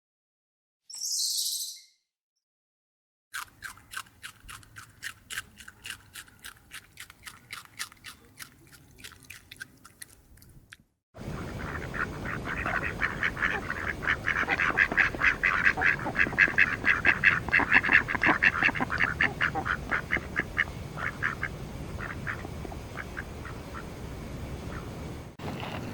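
Rapid, evenly repeated animal calls in two runs: a quieter run of quick calls, then after an abrupt cut about eleven seconds in, a louder, faster run over background noise.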